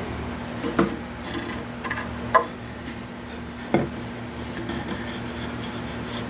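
Wooden parts being handled and set down on a workbench: three sharp knocks spread over a few seconds, over a steady low hum.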